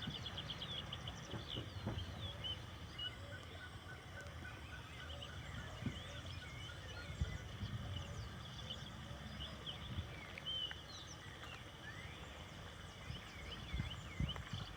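Several small birds chirping and whistling, with one giving a quick run of repeated notes about three seconds in. Scattered low thuds sound underneath.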